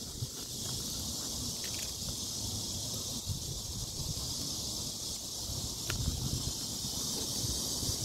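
Wind rumbling on a hand-held phone's microphone, with handling rustle as the phone swings about, over a steady high-pitched hiss.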